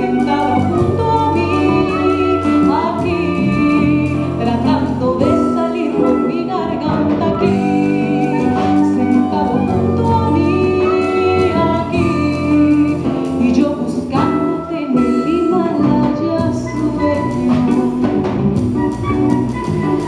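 Live jazz-inflected Colombian song: a woman singing over a small band of acoustic guitar, saxophone, electric bass and drum kit.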